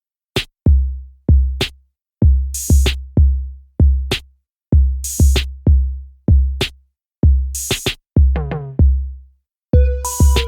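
Electronic background music: a drum-machine beat of deep, booming kick drums with a sharp noisy hit about every two and a half seconds, and a melody coming in near the end.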